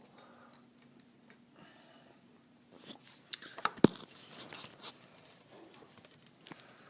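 Faint handling of a pair of electrical pliers against a bike cable lock, with scattered small clicks and one sharp click a little under four seconds in.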